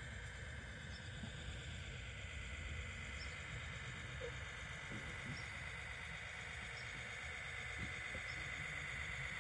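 Radio-controlled scale Unimog's electric motor and gearbox whining steadily as it crawls slowly, getting louder toward the end as it comes closer.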